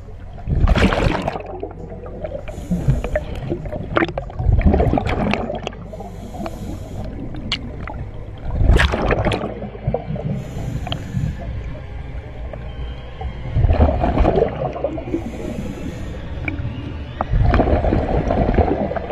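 Scuba diver breathing underwater through a regulator: a gurgling rush of exhaled bubbles about every four seconds, five in all, each followed by a short hissing inhalation.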